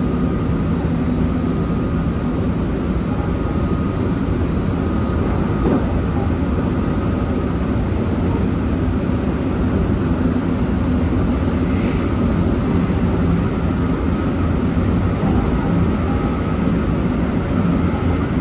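Running sound of a JR West 223 series electric train, heard in the driver's cab of the lead motor car fitted with Toshiba IGBT VVVF traction equipment: steady wheel, rail and motor noise with a few even hums.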